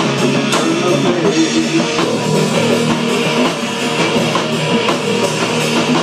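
Rock band playing live: guitar and drum kit in an instrumental stretch between sung lines, the drums keeping an even beat of about two hits a second.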